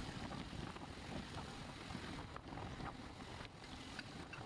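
Wind buffeting the microphone with a steady low rumble of road noise while riding along on a two-wheeler.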